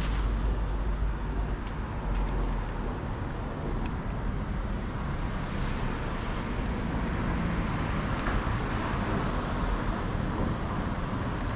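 Steady outdoor background noise with a low rumble. Over it, a faint, high, rapid chirping, each run lasting about a second, repeats roughly every two seconds.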